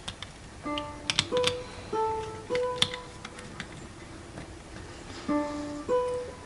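Plucked-string music, a string of separate picked notes, with several sharp clicks between about one and three seconds in.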